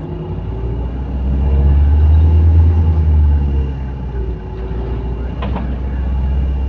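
Bus with an exhaust leak running on the move: a deep engine rumble swells for a couple of seconds and eases off. A whine glides up and down over it, and there is one sharp knock about five and a half seconds in.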